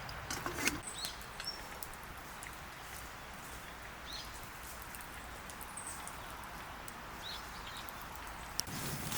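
Outdoor ambience: a steady background hiss with a few short, high bird chirps scattered through it, and a cluster of clicks just under a second in.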